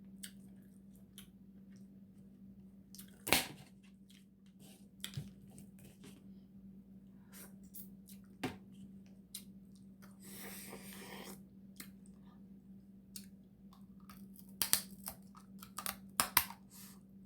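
Dungeness crab being eaten close to the microphone: scattered cracks and clicks of the shell being handled and broken, with chewing. The sharpest crack comes about three seconds in, and a cluster of cracks comes near the end. A steady low hum runs underneath.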